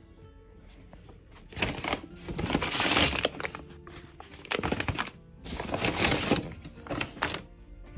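Brown paper takeaway bag being handled and opened, its stiff paper rustling and crinkling close up in several bouts starting about a second and a half in, over quiet background music.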